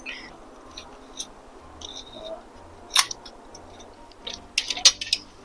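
Scattered small clicks and taps of hand work on a bicycle's rear brake, with one sharper click about three seconds in and a few quick clicks near the end.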